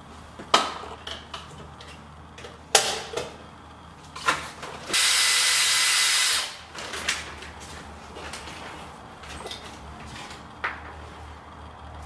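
Handheld power drill running in one short burst of about a second and a half, about five seconds in, after a few sharp clicks and knocks of fittings being handled against the wall; a few light taps follow.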